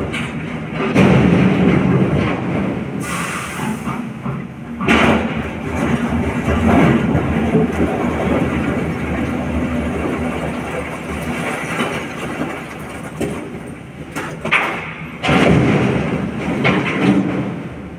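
SANY hydraulic excavator's diesel engine working under load as it digs broken quarry rock and loads it into a dump truck's steel body. Heavy clattering crashes of rock about a second in, again around five seconds, and again about fifteen seconds in, when the bucket dumps into the truck bed.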